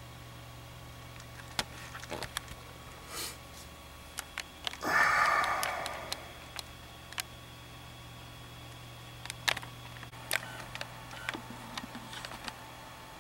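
Scattered light clicks and taps with a brief breathy rush about five seconds in, over a low steady hum.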